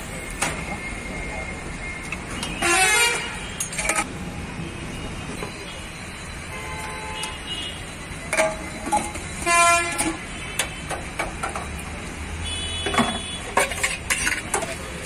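Roadside ambience: a steady traffic hum with vehicle horns honking briefly a few times, and sharp clinks of steel serving utensils against steel pots and trays.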